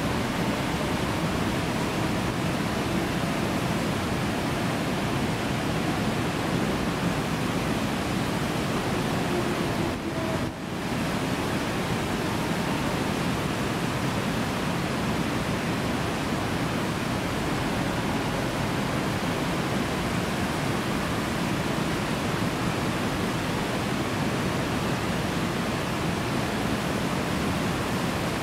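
River water rushing and churning through white-water rapids: a steady, dense rush, dipping briefly about ten seconds in.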